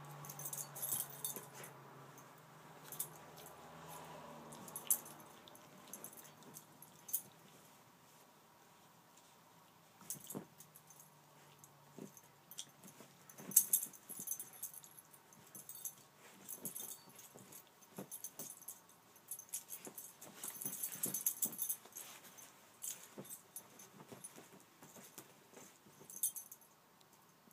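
Small schnoodle dog digging and pawing in blankets in its bed to bury its toy: fabric rustling and scratching with irregular light jingling clicks, coming in spells that are busiest about halfway through and again around three quarters of the way.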